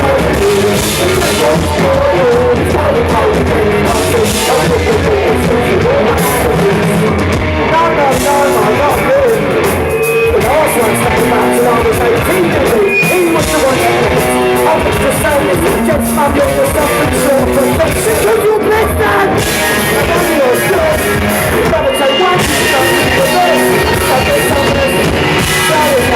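Rock band playing live and loud, with drums and electric guitar under a sung vocal line.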